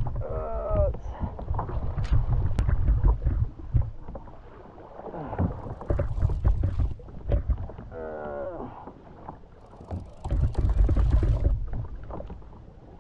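Wind gusting on the microphone and water slapping around a sit-on-top kayak at sea, with scattered small knocks. Two brief falling tones, about half a second in and again about eight seconds in.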